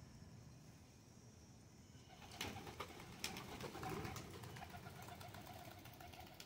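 Pakistani high flyer pigeons feeding, with faint low cooing. About two seconds in comes a run of sharp taps, their beaks pecking grain off the paving slabs.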